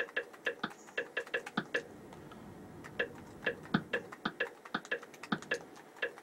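Rapid, evenly spaced clicks, about four to five a second, from stepping through a TV's on-screen keyboard with a remote, one click per press. The clicks pause for about a second around two seconds in, then carry on.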